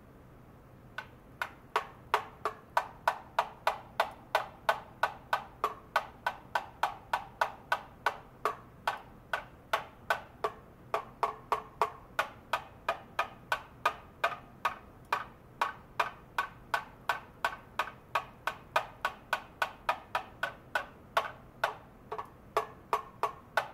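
Steady, even tapping with a white plastic rod on metal parts in a stainless steel tray, about two to three sharp taps a second, each ringing briefly; it starts about a second in.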